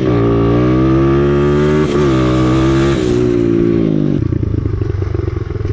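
125cc dirt bike engine pulling under throttle, its pitch climbing and then held high with a brief dip about two seconds in. About three seconds in the throttle closes and the revs fall away to a low, uneven off-throttle running.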